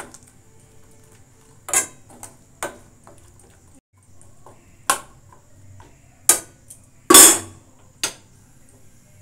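A metal spoon clinking and scraping against a metal pan as chopped dates are stirred into hot milk: several sharp clinks at uneven intervals, the loudest about seven seconds in.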